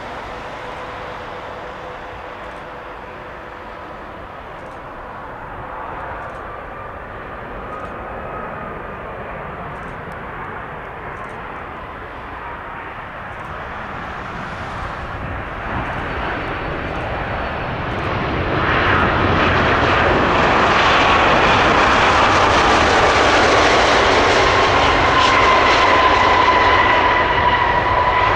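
Airbus Beluga XL's twin turbofan engines on approach and landing: a steady jet whine and rush that grows louder as the aircraft comes in. About two-thirds of the way in, after touchdown, the noise jumps suddenly to a much louder rush with strong whining tones as the engines spool up on the rollout.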